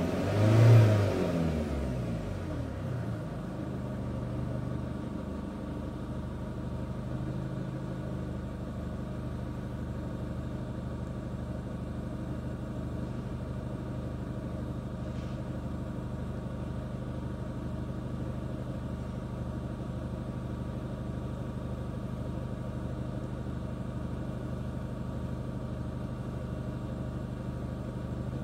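A 2009 Chevrolet Captiva's diesel engine is revved once, briefly, just under a second in. It then settles to a steady idle.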